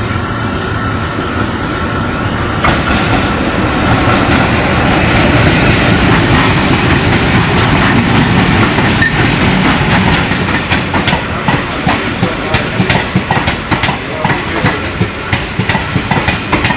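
Passenger train running at speed, heard as a steady rumble of the coaches on the track. About halfway through, the rhythmic clickety-clack of the wheels over rail joints grows plain.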